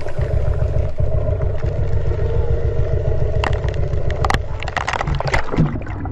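An engine running steadily, a low rumble with a steady hum over it, and a few sharp clicks and knocks in the second half.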